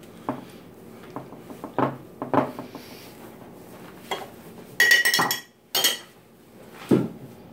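Dishes and cutlery being handled: scattered light knocks and clinks, with a louder clattering clink that rings briefly about five seconds in and another sharp clink just before six seconds.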